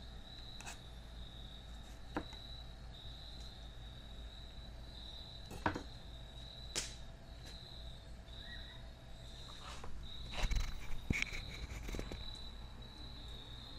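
Insects trilling steadily at a high pitch, with a few scattered clicks and knocks, the loudest a cluster about two-thirds of the way through.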